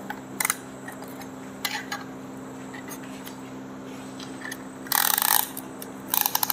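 Metal hand tools clinking and scraping on engine parts while a piston with its rings is fitted into the engine block. A few light clicks come early, then a loud rattling scrape about five seconds in, then a quick run of clinks near the end.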